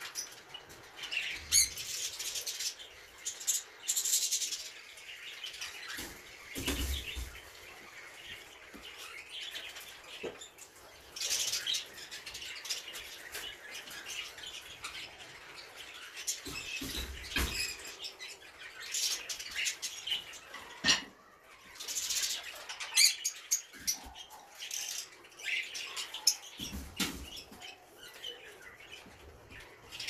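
Caged small parrots chirping and calling in short bursts throughout. A few knocks and rattles come from the wire cages being handled.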